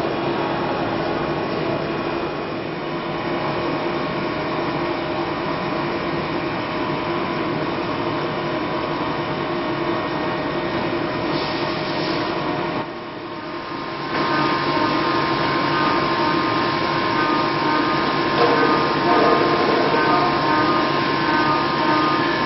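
High-speed milling machine spindle driving a small end mill through a metal block: a steady whine of several tones over the noise of cutting. About thirteen seconds in it dips briefly, then returns louder with more tones.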